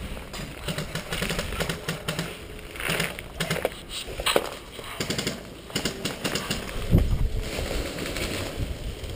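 Footsteps and the rustle of tall weeds and leaves brushing against a moving player, with a scatter of sharp irregular clicks and a heavier thump about seven seconds in.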